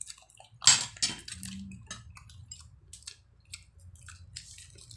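Mukbang eating sounds: one loud, brief noise as a spoonful goes into the mouth a little under a second in, then scattered small clicks of cutlery on a plate, chewing, and fingers working a shrimp shell.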